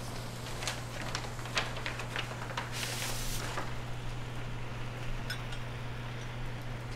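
Paper rustling and crackling as photographs are drawn out of a large paper envelope and handled, with a cluster of short rustles in the first few seconds and a few faint clicks later. A steady low hum runs underneath throughout.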